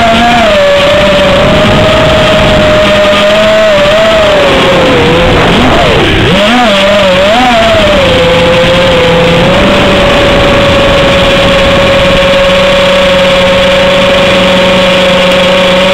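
FPV quadcopter's motors and propellers whining steadily over a hiss. The pitch swoops down and wobbles about halfway through as the throttle is chopped and punched, then settles into an even tone.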